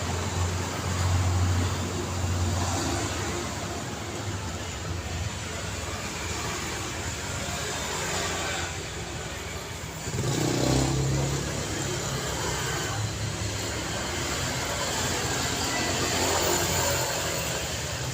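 City street traffic: a steady wash of cars driving past with low engine hum, and one louder vehicle passing about ten seconds in.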